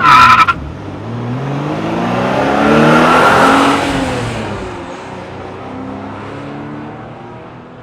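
A car driving past with its engine note rising to a peak about three seconds in and then falling away as it recedes. A short, loud tone sounds at the very start.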